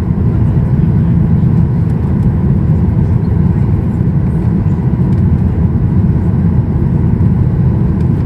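Steady low rumble inside the cabin of a Boeing 737-800 in flight: its CFM56-7B turbofan engines and the airflow over the fuselage, an even, unbroken drone.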